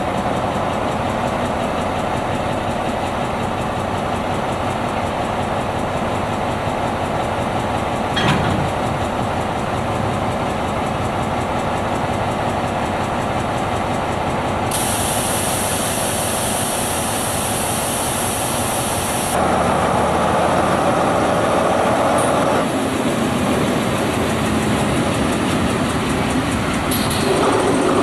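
FS D.143 diesel shunting locomotive's engine running steadily during shunting. There is a single knock about eight seconds in and a hiss lasting about five seconds midway. The engine grows louder about two-thirds of the way through, and again near the end.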